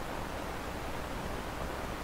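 Steady hiss of background noise with a low hum beneath it, unchanging throughout.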